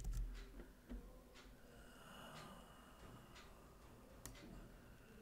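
A few faint, scattered clicks from computer keys, roughly one a second, over low room tone, with a soft breath in the middle.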